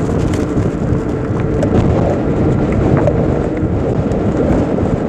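Wind buffeting the microphone while riding an electric motorbike: a loud, continuous rumble.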